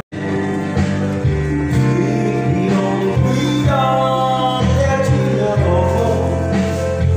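A man singing into a microphone over a backing track with guitar. The sound drops out briefly at the very start, at an edit.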